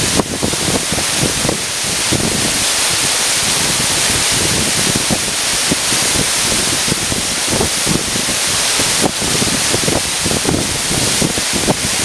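Waterfall pouring steadily into its plunge pool: a loud, even rush of falling water.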